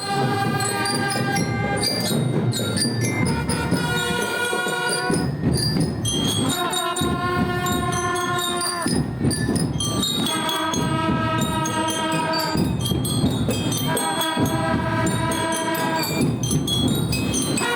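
Music: a melody in held notes, phrased in runs of about two seconds, over jingling, bell-like percussion.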